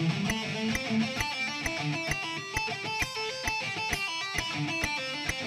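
Electric guitar playing a fast A minor pentatonic sequence in triplet groups of three. The notes are mostly hammer-ons and pull-offs, picked only where a new string comes in, over a metronome clicking a steady beat.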